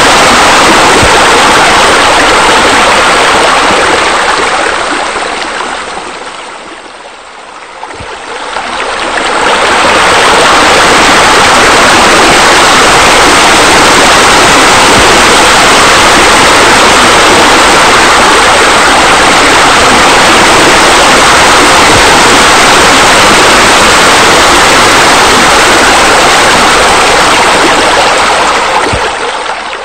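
Loud, steady rush of falling, splashing water, like pool water features spilling into a pool. It fades down and swells back up about seven seconds in, and fades again near the end.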